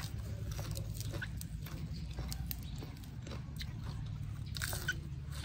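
Close-miked chewing and crunching of a mouthful of fresh lettuce leaves, a run of irregular crisp crunches and wet mouth clicks over a steady low hum.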